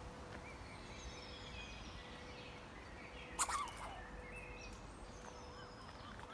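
Small songbirds twittering in thin, high chirps and short whistles throughout, with one sharp, louder sound a little past halfway; a faint steady hum sits underneath.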